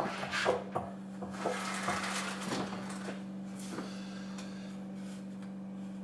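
A large cardboard panel is handled and slid into place against a fridge cabinet: scattered rubbing, scraping and light knocks, mostly in the first few seconds. A steady low hum runs underneath.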